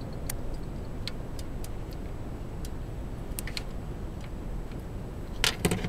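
Scattered light clicks and taps of hands handling small metal parts at a throttle body's idle air control valve, with a quick cluster of louder clicks near the end.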